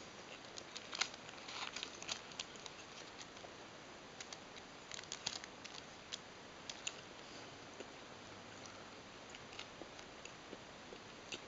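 Faint scattered crinkles and clicks as a steamed bun is lifted off its paper wrapper and pulled apart by hand, busiest about a second in and again about five seconds in.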